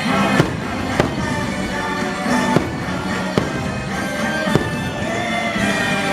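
Fireworks bursting with sharp bangs, about five in a few seconds, over the fireworks show's music soundtrack.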